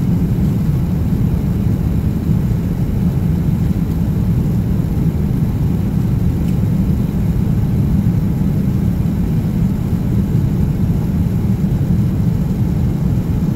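Steady low rushing drone of an airliner cabin at cruise altitude: the engines and the airflow over the fuselage heard from a passenger seat.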